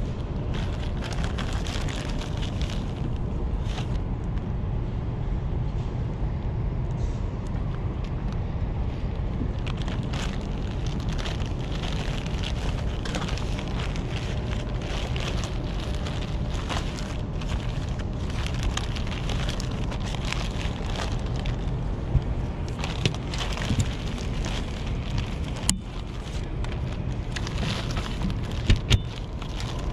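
Plastic zip-lock bag and soft-plastic lure packets crinkling and rustling as they are handled and tipped out, with a few sharp taps near the end, over a steady low rumble.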